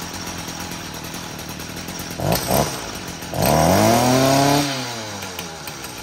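Gas string trimmer engine idling, given a short blip of throttle about two seconds in, then revved high for about a second before the engine winds back down toward idle.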